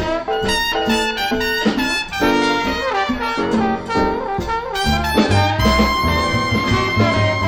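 Small-group swing jazz band playing a blues, with trumpet and trombone lines over bass and drums; from about two-thirds of the way in, a long high horn note is held steady.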